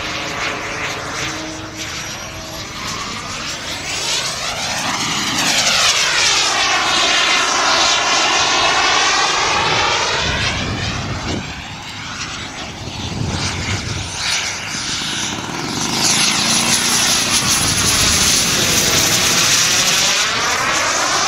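Small jet turbine on a 50%-scale Fox aerobatic glider model, running as a high whine over a loud rush. The rush swells and sweeps twice as the glider makes its passes, about four seconds in and again from about sixteen seconds.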